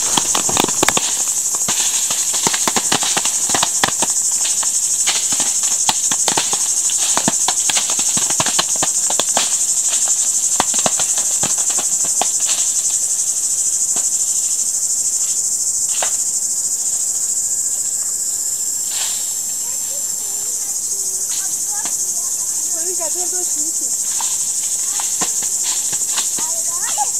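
Insects drone steadily in a high, shrill band throughout. Over it comes an irregular patter of sharp taps, apricots dropping onto the plastic tarps as the trees are shaken, dense in the first half and thinning later.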